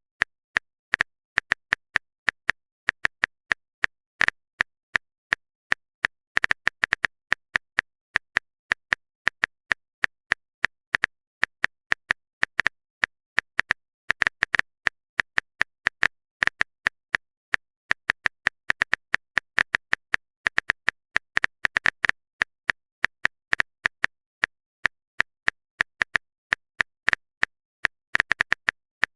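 Rapid, irregular typing clicks, a keyboard-tapping sound effect, several clicks a second with short pauses between bursts.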